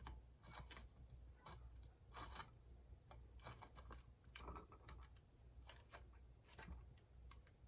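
Faint, irregular clicks and short scrapes of parts being handled: the paint cup being fitted onto a Fuji Spray GXPC 9600G spray gun, over a low steady hum.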